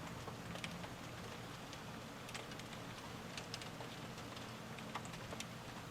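Light rain falling steadily, with scattered single drops ticking now and then.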